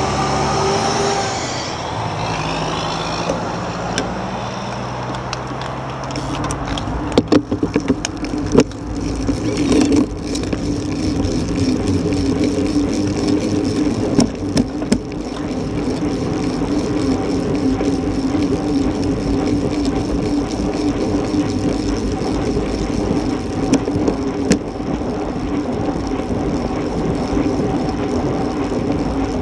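Road traffic with truck engines at an intersection for the first few seconds. Then steady wind rush on the microphone and tyre noise as a road bicycle rides off and picks up speed, with a few sharp clicks about seven to nine seconds in.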